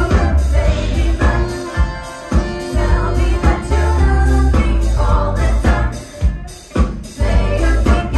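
Live band playing, with several singers singing together over a heavy bass line and drums.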